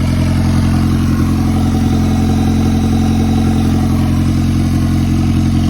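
Turbocharged Honda Accord engine idling steadily on its first start after the turbo install, with the freshly installed turbo spinning; the running is healthy.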